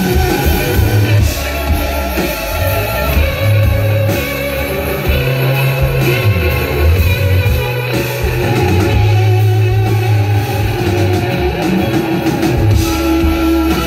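Live band music recorded from the audience: electric guitar over a deep bass line of long held notes.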